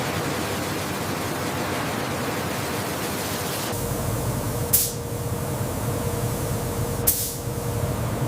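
Steady factory machinery noise with a low hum and a faint steady tone. The noise shifts a little under four seconds in, and two short, sharp hisses follow a couple of seconds apart.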